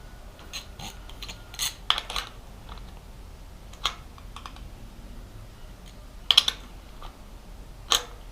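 Irregular metal clicks and taps from hand tools working a rocker arm adjusting nut on a Chevy 350 V8, as the valve lash is set to zero and then preloaded. The clicks come a few at a time, loudest about two seconds in and again after six seconds.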